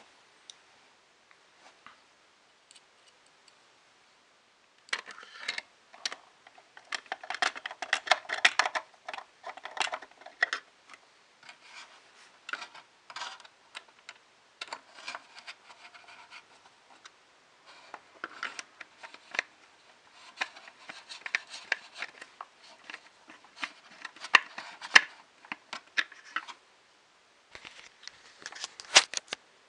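Hands handling small plastic and metal printer parts: a run of close-set clicks, scratches and rubbing that starts about five seconds in and comes in bursts with short pauses.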